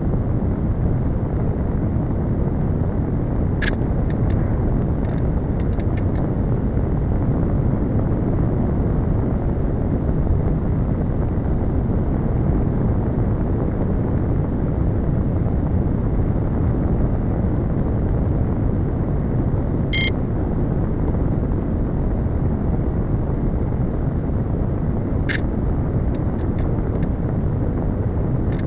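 Steady wind rush on the onboard camera microphone of a Slow Stick RC plane gliding on its descent. There is no motor tone, and a few brief clicks come now and then.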